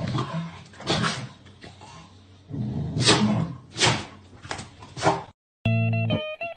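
Two corgis squaring off: growling and scuffling, with several short, sharp sounds. After a brief gap near the end, guitar music starts.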